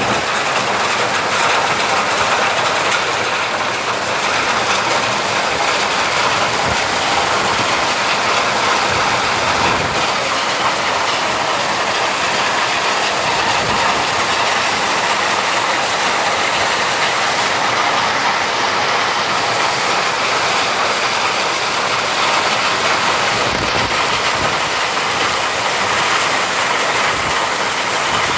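Very heavy hail pelting down, a dense, steady clatter of hailstones striking the ground.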